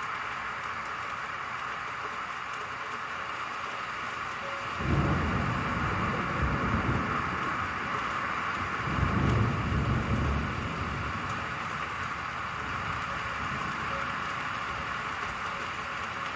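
Steady rain hiss, with a low rumble of thunder coming in about five seconds in, swelling again a few seconds later and dying away after about ten seconds.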